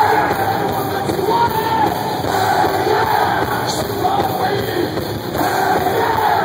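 Loud live heavy rock band playing through the concert PA, with a sung vocal line over the guitars and drums and the crowd mixed in.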